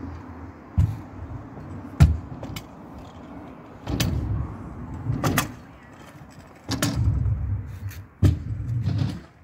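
Stunt scooter wheels rolling over skatepark ramps and concrete in stretches of low rumble about a second long each, broken by several sharp clacks as the scooter lands and strikes the ramps; the loudest clack comes about two seconds in.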